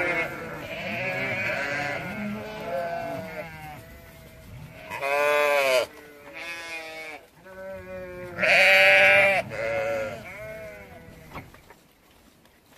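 A flock of sheep bleating, many calls overlapping, with two loud, long bleats about five and nine seconds in; the calling dies away near the end.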